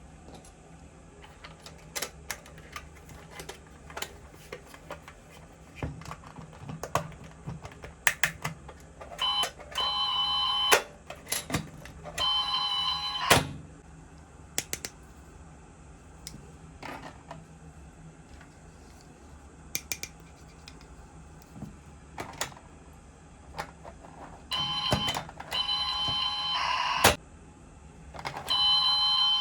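Small plastic toy kitchen appliances being handled, with scattered sharp plastic clicks. Four times a battery-powered toy gives a steady electronic tone lasting one to two and a half seconds, cut off abruptly each time.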